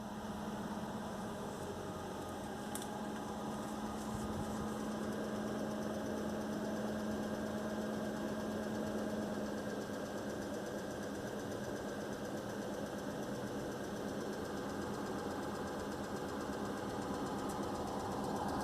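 An engine running steadily with a constant low hum, carrying an abnormal noise that the owner has noticed.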